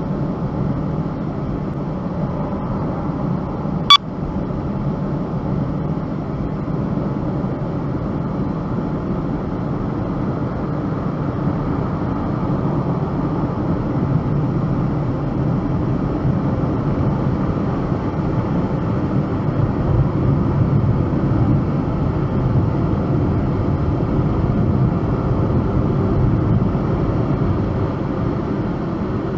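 Steady low rumble of a car in motion, growing a little louder midway, with a single sharp click about four seconds in.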